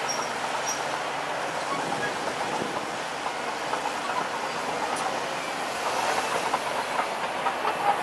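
Komatsu D31P crawler bulldozer running as it pushes forward, with the steel tracks rattling in a steady clatter of small clicks over the engine noise.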